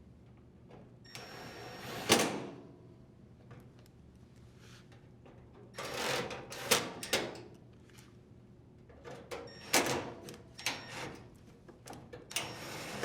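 Cordless drill driver driving screws into the dryer's sheet-metal front panel: several short runs of the motor, each with sharp clicks.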